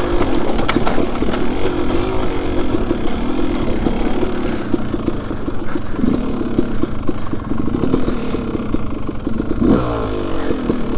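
Yamaha YZ250 single-cylinder two-stroke dirt bike engine running under way, the revs rising and falling, with a sharp drop in revs about ten seconds in.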